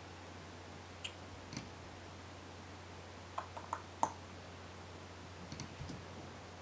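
A few faint computer mouse clicks, scattered and irregular, the sharpest about four seconds in, over a low steady electrical hum.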